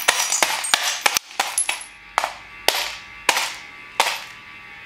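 Claw hammer repeatedly smashing a metal twin-bell alarm clock on a concrete floor: a quick flurry of blows in the first second or so, then slower single blows about every half second. Each is a sharp clanking crack with a brief metallic ring.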